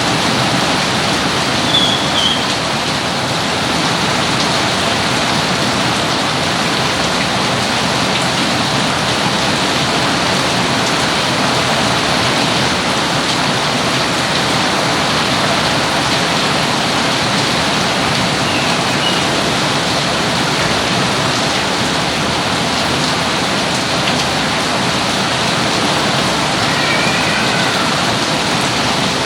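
Steady, heavy rainfall pattering on surfaces, an even loud wash of noise, with a few brief faint high chirps over it about 2 s in, midway and near the end.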